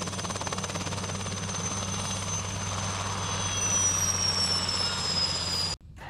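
Helicopter running on the ground with its rotor turning: a steady low engine and rotor drone under a high whine that slides down in pitch over the last couple of seconds. The sound cuts off suddenly near the end and music starts.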